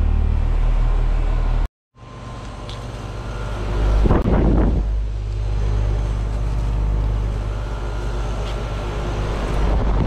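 Heat pump outdoor units running in heating mode, with the steady low hum of the compressor and condenser fan. The sound cuts out completely for a moment just under two seconds in, then a second unit's hum fades back in. A short louder burst of rushing noise comes about four seconds in.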